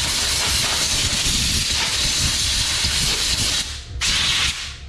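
Compressed-air blow gun on a shop air hose blasting dust off an engine's supercharger: a loud hiss lasting about three and a half seconds, a brief break, then a second, shorter blast.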